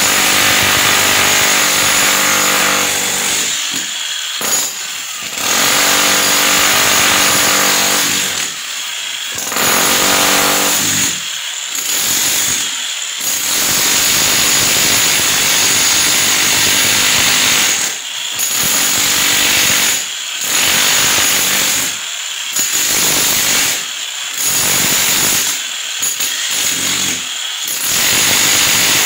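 Handheld power tool running loudly in stretches of one to several seconds, stopping briefly about a dozen times between runs.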